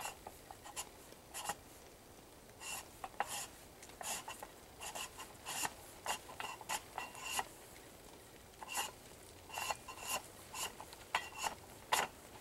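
Master Lock Python locking cable being pulled through the lock holes of a trail-camera security box, scraping and rubbing in a string of short, irregular strokes with a faint metallic ring.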